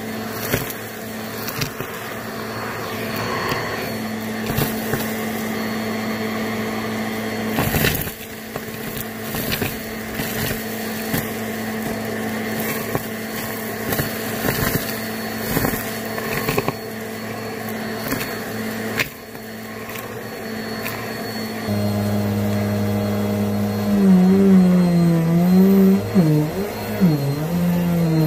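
Vacuum cleaner running steadily, with scattered clicks and rattles of debris being sucked up. Near the end the motor's pitch wavers up and down and gets louder, as if its airflow is partly blocked and freed.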